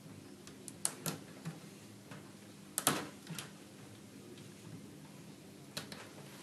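Faint clicks and ticks of a small screwdriver working the wire terminals of a fluorescent troffer's electronic ballast as the wires are released. There are a few sharp clicks about a second in, the loudest near three seconds in, and two more near the end.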